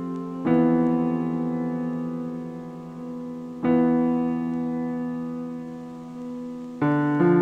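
Background music: slow piano chords, a new chord struck about every three seconds and left to ring and fade.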